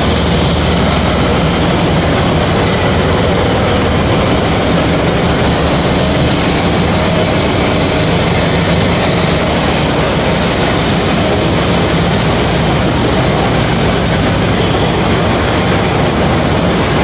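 Diesel locomotive's engine running steadily and loudly as it draws a train of empty passenger coaches along the platform, a continuous low rumble with the noise of the train rolling by.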